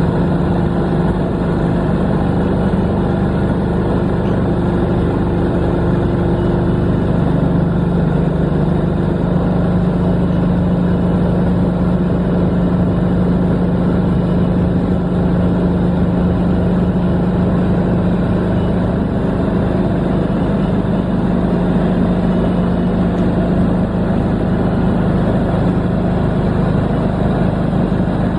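Kohler diesel engine of a mobile lighting tower running steadily, driving its 5 kVA generator to power four lit metal halide lamps. A steady hum, its tone shifting slightly about nine seconds in.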